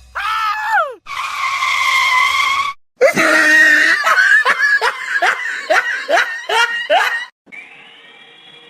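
Loud screaming, yelping vocal sounds: a short falling cry, then a held scream, then a run of about eight short rising yelps, roughly two a second.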